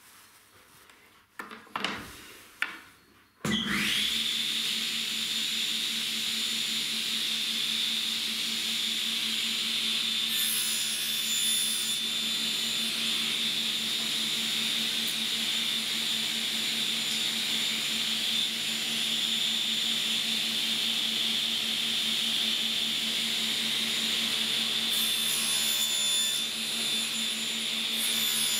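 A few knocks of wood on the saw table, then a table saw starts suddenly about three and a half seconds in and runs steadily with a low hum and a high whine. Its sound changes slightly twice, near ten and near twenty-five seconds in, as the blade makes 45-degree test miter cuts through a thin wooden strip.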